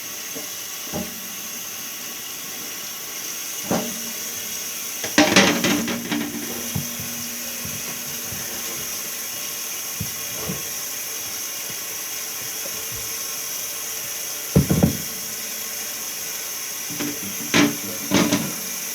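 Tap water running into a sink with a steady hiss while removable mini-fridge parts are scrubbed. Occasional knocks and clatters as the parts are handled, the loudest a cluster about five seconds in.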